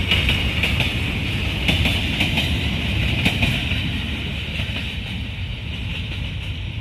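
Freight train of open-top steel wagons rolling past, with a steady low rumble and wheels clattering and clicking on the rails. The sound fades after a few seconds as the last wagons move away.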